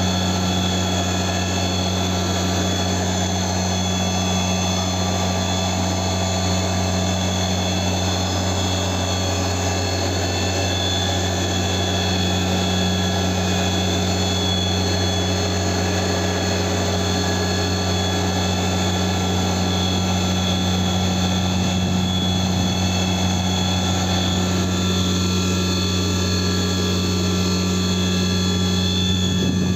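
CNC milling machine running steadily: a deep hum with many high, steady whining tones above it, unchanging throughout.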